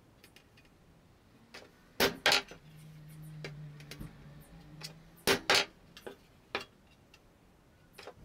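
Hammer striking a center punch against an enamelled steel baking pan: two sharp metallic taps about two seconds in and two more about three seconds later, marking the points for drilling holes. A faint low hum sounds between the two pairs of strikes.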